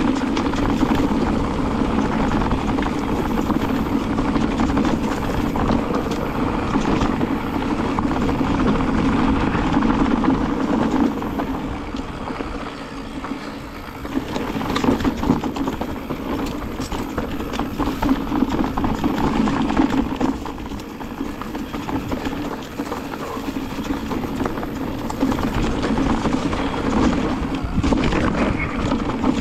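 Mountain bike ridden over a dry, stony dirt trail: tyre noise on dirt and loose stones, with the bike and its handlebar-mounted camera rattling and knocking over bumps. It eases off briefly about halfway through, then the knocks pick up again.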